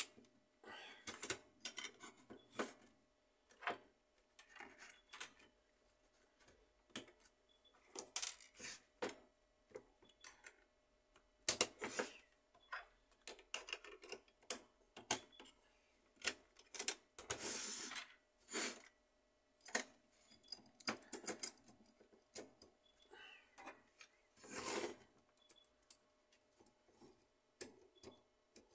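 Irregular clicks, knocks and light rattles of plastic and metal parts of an HP LaserJet 1300 fuser assembly being handled and fitted together, with a few short scraping sounds.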